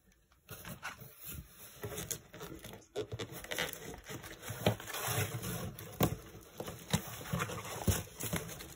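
Rustling, crinkling and scraping as plastic-sleeved papers and a paperback puzzle book are handled and slid around inside a cardboard box lined with shredded paper fill, with many small taps and clicks.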